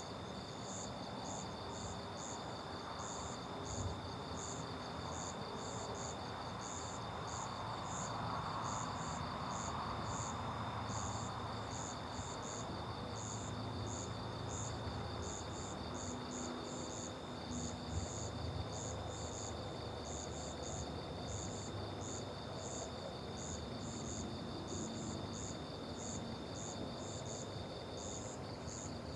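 Insects, crickets among them, chirping steadily: a continuous high trill with repeated high chirps about twice a second, over a soft background hiss.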